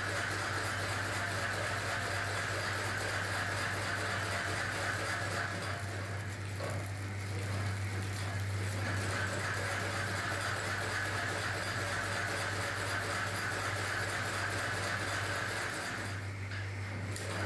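Steady low mechanical hum with a constant whirring hiss from running workshop machinery, dipping briefly near the end.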